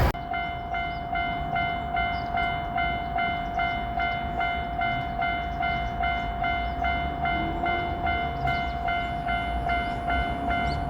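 Japanese level-crossing electronic warning bell ringing in an even repeating ding, a little under two strikes a second, over a steady tone.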